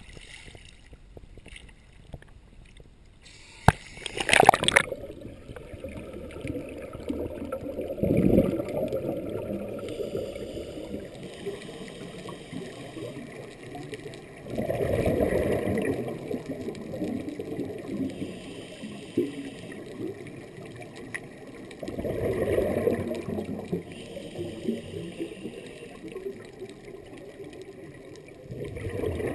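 Surface water lapping, then a loud splash about four seconds in as the camera goes under. After that comes a muffled underwater hush broken about every seven seconds by a low rushing gurgle lasting a second or two: a scuba diver's exhaled regulator bubbles.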